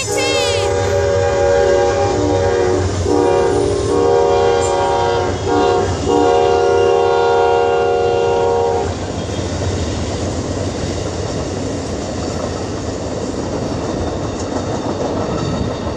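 Amtrak passenger locomotive's multi-note horn sounding in several blasts with short breaks, the last one held until about nine seconds in. Then only the passenger cars are heard, rumbling and clicking over the rail joints as they pass.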